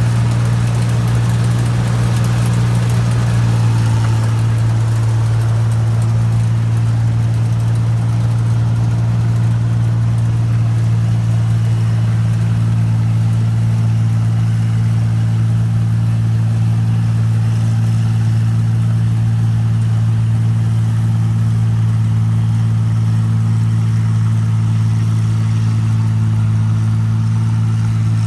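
New Holland Clayson 1545-S combine harvester's diesel engine running at a steady speed with a deep, even hum. A brighter rushing noise rides over it for the first few seconds, then fades.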